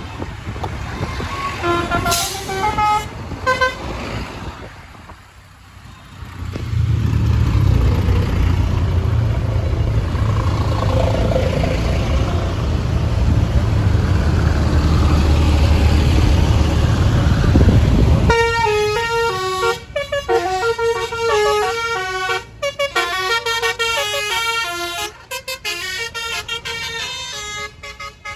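Tour-bus telolet horns playing short melodies in quick stepped notes, briefly at first and then at length in the second half. In between, a bus engine runs loud and low for about ten seconds.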